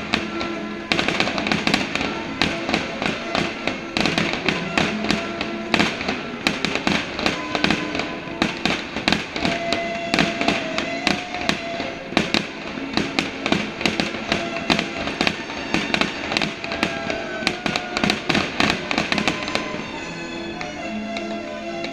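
Fireworks going off in a rapid, continuous string of sharp bangs, several a second, with music playing underneath. The bangs stop near the end and the music goes on.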